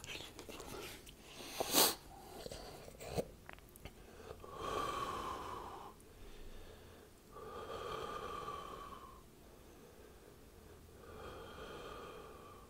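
A man breathing through his nose while chewing a mouthful of raw steak: a sharp snort about two seconds in, then three long nasal breaths, each with a steady whistling tone.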